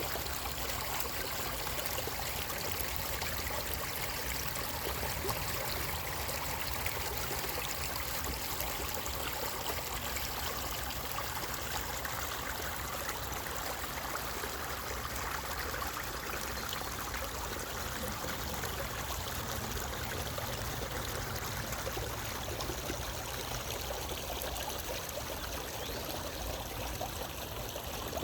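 Running water, like a stream, flowing steadily as a continuous even rush.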